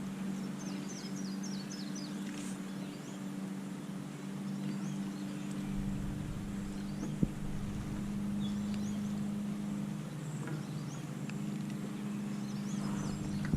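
A steady low hum runs throughout, with small birds chirping in quick series of short high notes, most clearly about a second in and near the end.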